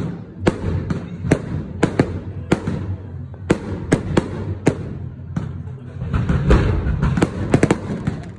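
Fireworks rockets going off overhead, a quick series of sharp bangs at uneven intervals that come thicker near the end, over a steady low rumble.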